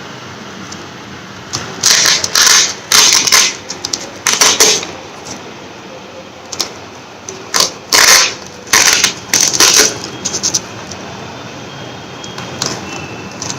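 Short scratchy rustling and scraping bursts, about eight in two clusters, from intercom speakers and wiring being pressed and fitted into a helmet's inner padding.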